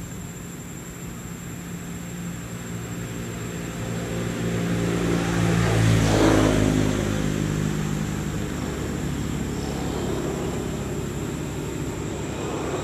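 A motor vehicle driving past: its engine hum builds up, is loudest about six seconds in, then drops in pitch and fades as it moves away.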